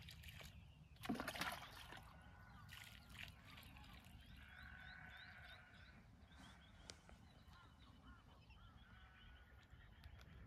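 Faint birdsong: small chirps repeating throughout. About a second in comes one louder, short bird or animal call.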